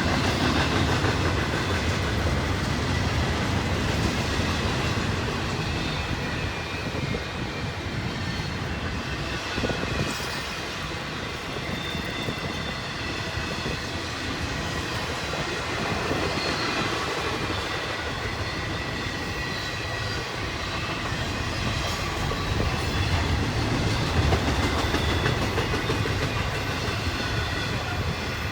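Loaded cars of an intermodal stack train rolling past steadily, wheels clicking over the rail joints, with faint high wheel squeal.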